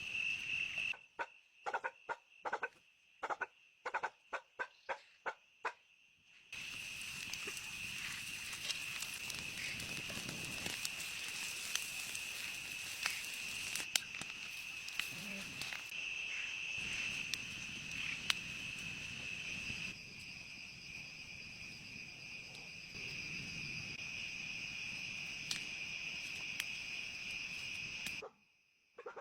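Insects chirring steadily at one high pitch, against a rural outdoor background. In the first few seconds about a dozen short sharp knocks sound at a quick, even pace.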